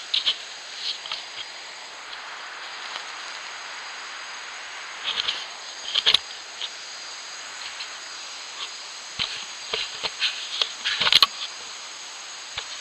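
An ocelot nosing and rubbing against a trail camera: irregular scrapes, taps and knocks on the camera housing right at the microphone, in short clusters, busiest and loudest between about nine and eleven seconds in, over a steady hiss.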